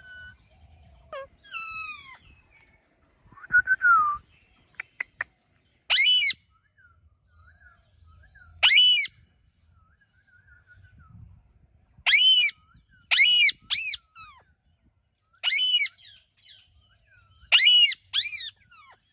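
A pet parrot calling. It gives soft chirps and whistles in the first few seconds, then about eight loud, short squawks, some in quick pairs.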